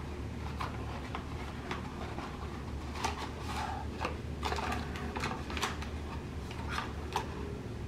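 Cardboard pregnancy-test box being handled and opened, with its paper instruction leaflet and foil wrapper pulled out and unfolded: a run of soft crinkles and clicks, irregular and a few a second, over a low hum.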